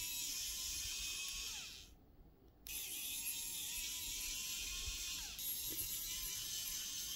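Cordless electric precision screwdriver whirring as it backs out tiny screws, stopping briefly about two seconds in, then running again until the end.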